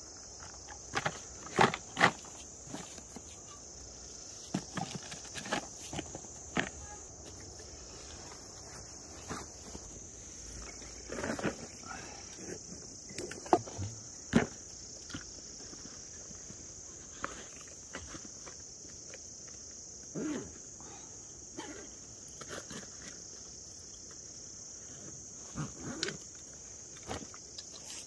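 Insects chirring in a steady high drone throughout, with irregular rustles, taps and knocks of camping gear being handled and packed into a cardboard box and a backpack; the sharpest knocks come about two seconds in and again about halfway through.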